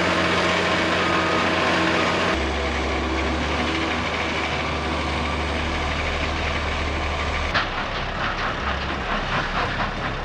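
Heavy machinery engines running steadily, in three stretches that change abruptly about two seconds and about seven and a half seconds in, the second change with a sharp click.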